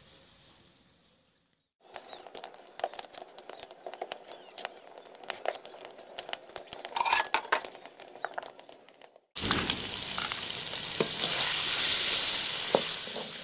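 Chicken pieces sizzling loudly in a hot pan as they are stirred with a spatula, starting abruptly about nine seconds in, with a few knocks of the spatula against the pan. Before that, a few seconds of irregular crackling and clicking from a wood fire burning in a clay stove.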